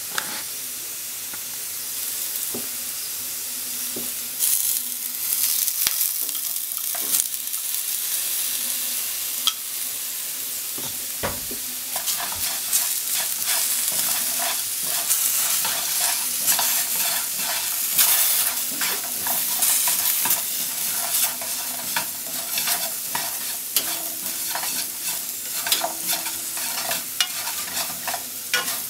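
Potato slices and shrimp sizzling in oil in a non-stick frying pan, with chopsticks clicking and scraping against the pan as they are stirred. There is a single knock a little before halfway, and the stirring clicks come thicker after it.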